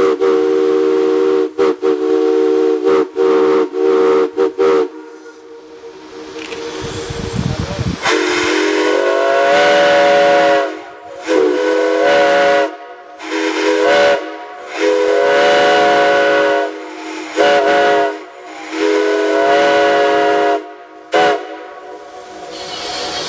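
Steam chime whistles blowing. First comes a steady multi-note chord cut into a quick run of short toots, then a few seconds of hissing steam. Then a string of long and short whistle blasts whose notes slide up in pitch as each one opens.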